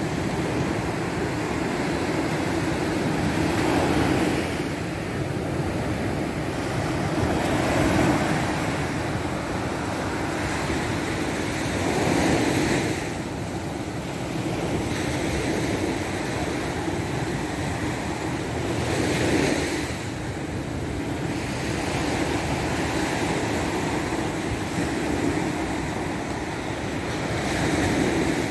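Surf breaking on the shore. A steady wash of noise swells as each wave comes in, every few seconds.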